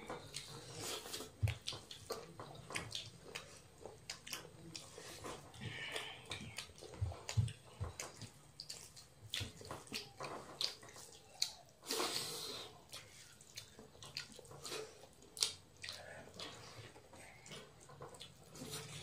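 Wet, irregular squelching and smacking of people eating rice and curry with their hands: fingers mashing and scooping rice on steel plates, with mouth and chewing sounds.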